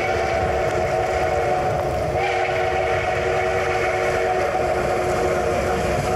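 The steam whistle of ATSF 3751, a 4-8-4 Northern-type steam locomotive, held in one long blast of several notes sounding together as the train approaches at speed. Its upper note swells again about two seconds in. Beneath it is the low rumble of the locomotive and train on the move.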